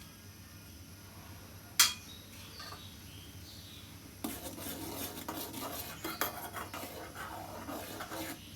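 Metal kitchen utensils clinking against a cooking pot: one sharp clink about two seconds in, then about four seconds of rapid clinking and scraping, like a spoon working in a pan.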